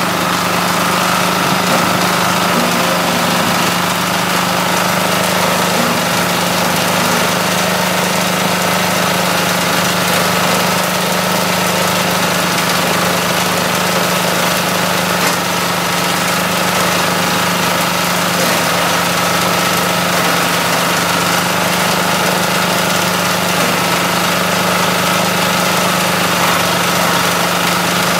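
Small engine on a coconut-frond shredder running steadily at constant speed while palm fronds are fed into the shredder's hopper.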